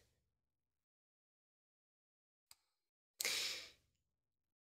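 Near silence broken by a faint click, then a short breathy exhale like a sigh a little after three seconds in.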